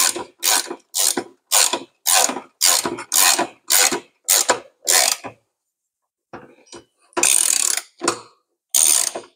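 Ratchet spanner clicking in quick repeated strokes, a little over two a second, as nylock nuts are run up onto the differential mounting studs. About five seconds in it pauses briefly, with a few faint ticks, then comes back as two longer ratcheting runs near the end.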